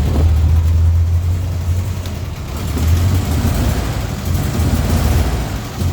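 Diesel engine of a 2009 Mercedes-Benz Marcopolo Vicino school bus running with a steady low hum, its level dipping and swelling again about three seconds in as it is revved.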